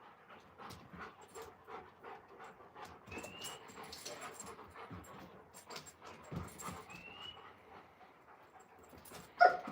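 Alaskan Malamutes panting hard in rapid short puffs while playing, with a loud, high, squeaky whimper breaking out near the end.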